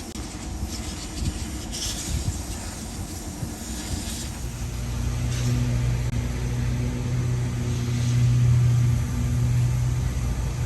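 Repair-shop machinery noise: a low rumble with a few short bursts of hiss. About halfway through, a steady low machine hum sets in and grows louder.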